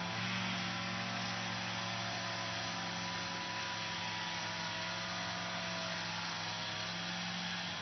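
Lawn mower running steadily: an even motor hum with a hiss over it, its pitch dipping slightly near the end.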